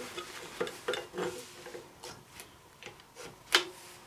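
A one-handed quick clamp being worked tight against a brake master cylinder held in a bench vise: a scatter of short clicks and knocks from the clamp and metal parts, the loudest about three and a half seconds in.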